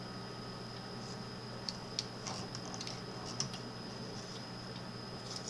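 A few faint, scattered clicks of computer keyboard keys, about five of them between one and a half and three and a half seconds in, over a steady electrical hum and a thin high whine.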